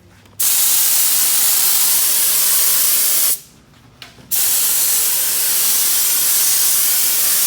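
Duro Dyne Super Spray Fast adhesive spray gun spraying water-based duct-liner adhesive: a loud, steady hiss in two bursts of about three seconds each, with a pause of about a second between.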